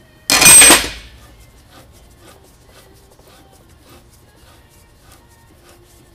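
A single loud metal clank with brief ringing, about a third of a second in, as steel parts of a hydraulic cylinder and its pulling fixture knock together. After it come only faint small clicks.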